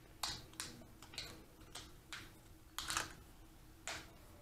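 Irregular small plastic clicks and taps, about seven of them, the loudest around three seconds in, from handling a smart curtain motor's plastic parts and batteries.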